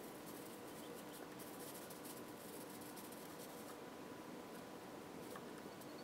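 Faint, distant crackling rustle of tent nylon fabric being handled, over a steady low background hiss; the crackles thin out about two-thirds of the way through.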